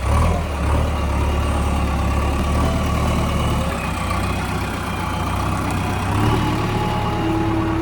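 JCB backhoe loader's diesel engine running, a steady low rumble that eases off about halfway through and picks up again near the end.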